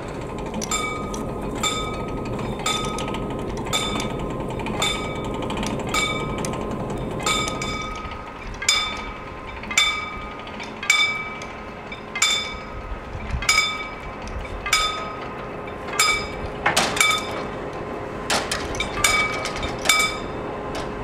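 Pre-warning bell of a hand-cranked mechanical level-crossing barrier, ringing single strokes about once a second, unevenly, as the winch is turned to lower the barriers. One louder metallic clank comes about three-quarters of the way through.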